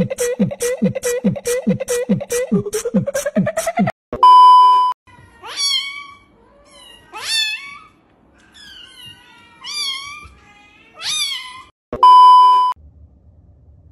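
A fast, even beat for about four seconds, cut off by a loud steady test-tone beep. Then a kitten meows about five times, and a second test-tone beep sounds near the end.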